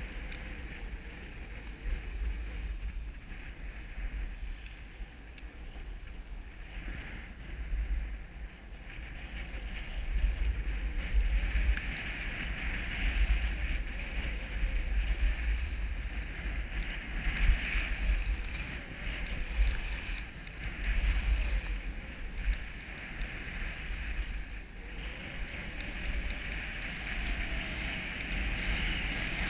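Skis sliding and scraping over groomed snow on a downhill run, a steady hiss, with wind buffeting the camera's microphone. The hiss and rumble grow louder about ten seconds in as the run picks up speed.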